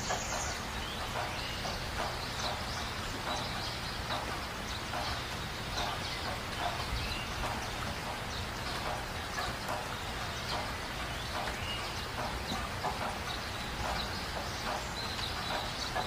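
Steady rain with birds calling through it in many short, frequent calls.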